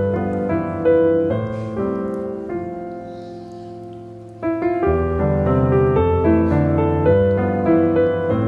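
Background piano music: a melody of notes over chords. About a second in, one chord is held and fades for a few seconds before the playing picks up again.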